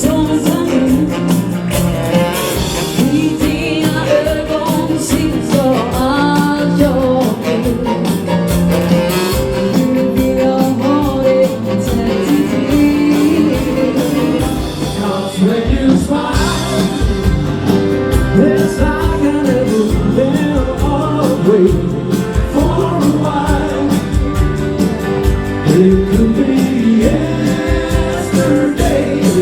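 A live dansband plays dance music: a woman sings the melody over a band with a steady dance beat on the drums.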